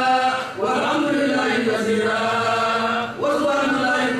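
A voice chanting in long held notes, breaking briefly and gliding up into a new phrase about half a second in and again near the end.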